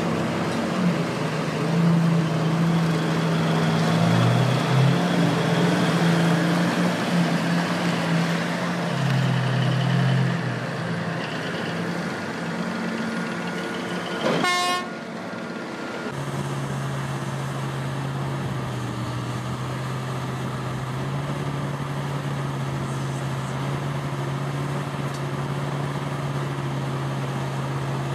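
Heavy diesel engines of mining machinery running, a Euclid R90C haul truck and the shovel loading it, with the engine note shifting up and down. About halfway there is a brief sharp clack, after which a steadier, even engine hum carries on.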